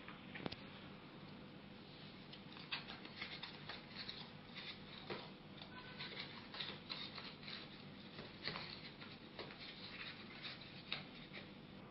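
A small cardboard box being handled and opened on a table: a string of faint, irregular papery scrapes, taps and rustles from the flaps.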